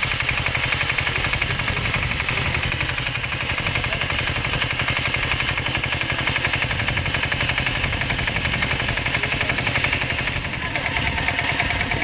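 Single-cylinder diesel engine of a Kamco walk-behind power tiller running steadily while it tills a field, with a fast, even firing beat.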